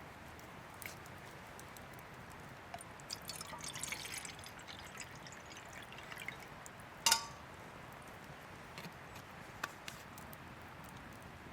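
Liquid dripping and trickling in small faint ticks, with a denser run about three to four seconds in and one sharp clink with a brief ring about seven seconds in.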